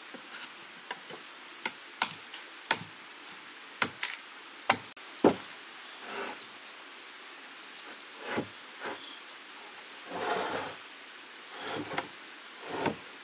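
Hand work on wood: sharp, irregular knocks, about seven in the first five seconds with the loudest near five seconds in, then several softer, longer rustling or scraping sounds, the longest about ten seconds in.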